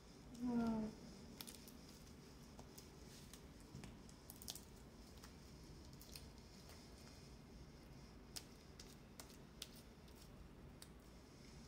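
Homemade glue slime being kneaded and squeezed in the hands: faint, irregular sticky clicks and squelches.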